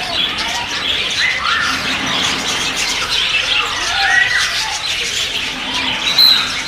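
Many birds chirping and calling at once: a dense, continuous chorus of high chirps mixed with short, rising-and-falling squawking calls.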